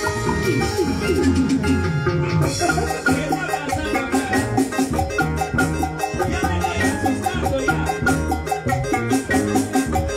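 Live instrumental band music: quick runs of plucked harp notes and a bass line over a steady drum beat, with a repeated higher melodic figure joining about two and a half seconds in.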